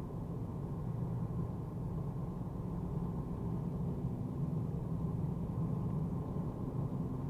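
Steady low road and engine drone inside the cabin of a Mercedes-AMG A35 with its turbocharged four-cylinder, driving at a constant pace, with a faint steady tone rising in about halfway through.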